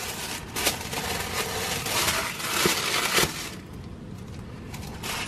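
Tissue paper crinkling and rustling as it is pulled open by hand, with a few sharp crackles, for about three and a half seconds before it goes quieter.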